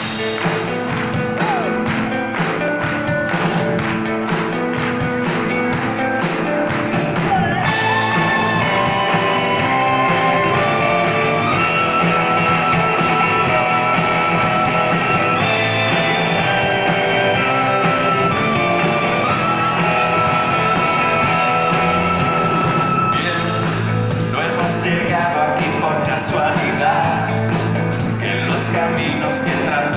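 Live rock band playing with singing: drums, electric guitars and keyboard, heard from the audience. From about 8 seconds in, the cymbal beat drops out and held high notes carry the melody, and the cymbals come back about 23 seconds in.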